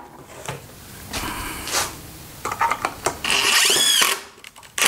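Cordless drill running in short bursts into a pine frame, the louder run about three seconds in with its motor pitch rising and then falling.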